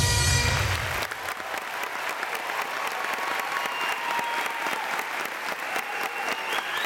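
Audience applauding and cheering after bagpipes stop; the pipes' sound cuts off about a second in, leaving steady clapping.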